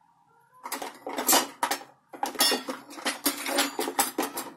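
Large metal spoon scraping and clinking against a dish while thick yogurt is spooned out, in quick strokes that break off briefly about two seconds in.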